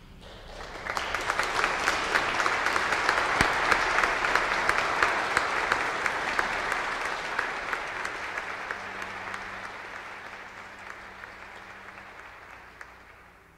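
Audience applauding, building up about a second in and then slowly dying away.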